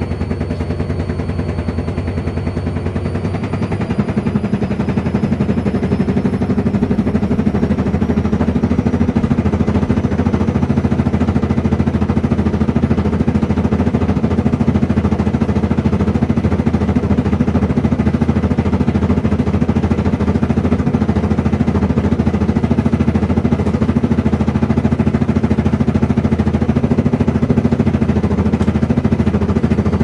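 Front-loading washing machines on their final high-speed spin, the motor whine rising over the first several seconds as the drum speeds up, then holding steady under a fast, even rattling hum.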